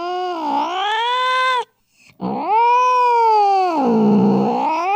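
A cat yowling: two long, drawn-out calls, the pitch sagging low in the middle of each and rising again, with a short break between them. These are the warning yowls of a cat squaring off with another.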